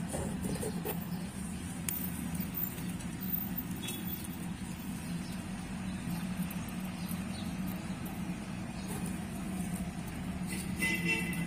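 Steady low background hum, like a motor or distant traffic, with a brief higher-pitched sound near the end.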